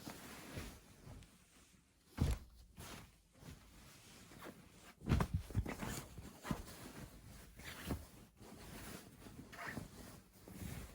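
Soft rustling and handling noises, with a few dull knocks about two and five seconds in.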